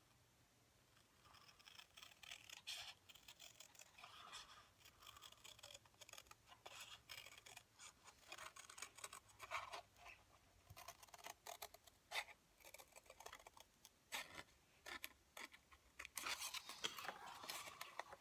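Scissors cutting a stiff paper pattern piece in a run of short, quiet, irregular snips that start about a second in, with louder rustling of the piece being handled near the end.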